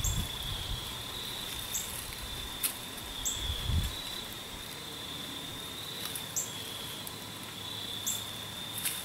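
A cricket trilling steadily on one high, slightly wavering note, with a few short crackles, like dry leaves, scattered through it.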